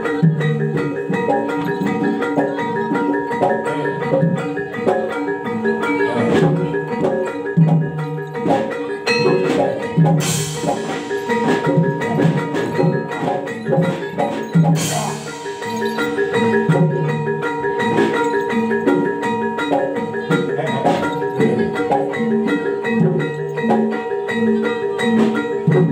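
Live Javanese gamelan playing barongan dance music: metallophones ring out a repeating melody over a steady drum beat. Two short noisy crashes cut through, about ten and fifteen seconds in.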